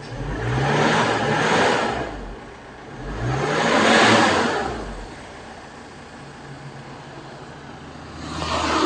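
Isuzu D-Max's 4JK1 four-cylinder diesel engine running, revved up and let fall back three times, about a second in, around four seconds in and near the end. It has just been restarted after a fuel-filter change and bleeding of the fuel system.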